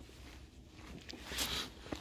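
Footsteps on a gravel path, the loudest step about a second and a half in, with a sharp click near the end.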